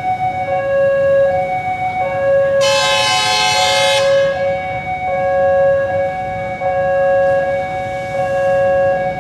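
Railway level-crossing warning alarm sounding a steady two-tone wail, broken by short gaps. About two and a half seconds in, a train horn blasts for about a second and a half over it.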